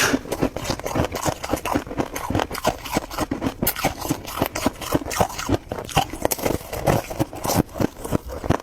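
Freezer frost being chewed: dense, irregular crunching, many small crunches a second.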